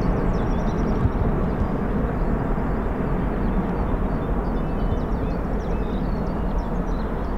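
Steady jet aircraft engine noise that slowly fades.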